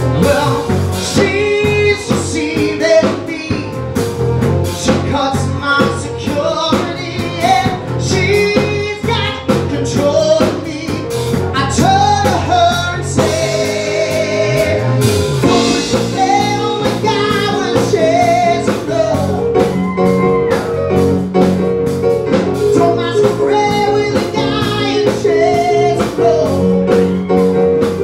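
Live band performance: a male vocalist singing over keyboards, bass guitar and a drum kit keeping a steady beat.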